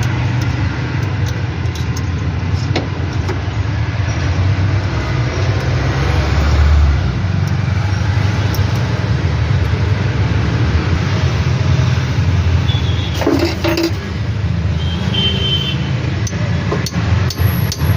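Bajaj Maxima auto rickshaw engine running steadily with a knocking chain noise, which the mechanic puts down to the timing chain and later says a setting adjustment has not cured. A brief deeper surge about six to seven seconds in, and a few sharp clicks a little past halfway.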